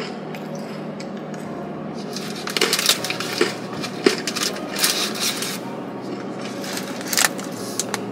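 Crunchy baked sweet potato sticks being chewed close to the microphone: irregular crisp crunches and clicks in a few clusters.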